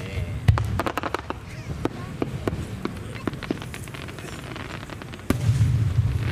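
Aerial firework shells bursting: a sharp bang about half a second in, then a run of crackling pops from the stars. Another boom comes about five seconds in, with a long low rumble after it.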